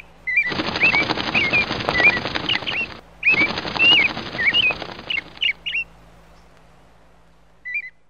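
Short bird chirps over two bursts of rapid wing flapping, each about two seconds long with a brief break between them. The flapping fades away and two last chirps come near the end.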